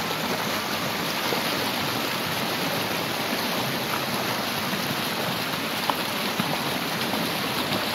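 Shallow, rocky stream running over stones: a steady rush of water.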